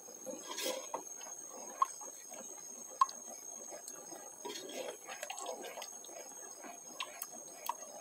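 A spoon stirring a thin milk and cornstarch sauce in a metal saucepan: soft scraping and swishing, with two sharp ticks of the spoon against the pan about two and three seconds in.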